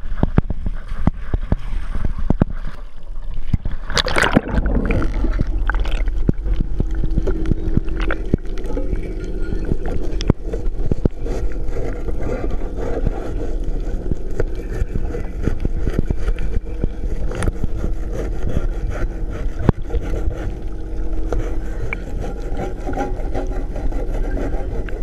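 Water splashing around a boat as fish jump and seabirds dive on them in a feeding frenzy: many sharp splashes over a steady low rumble, with one louder hit about four seconds in.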